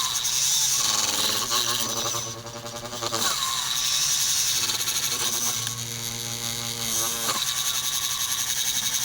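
Whine of the small electric motors and gear drives of radio-controlled construction models, running steadily with a high hiss. The whine winds down in a falling sweep three times as a motor stops, then starts again.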